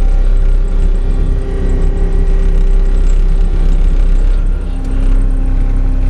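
Diesel engine of a compact earthmoving machine (excavator or tracked loader) running steadily under work. It dips briefly and shifts in tone a little under five seconds in.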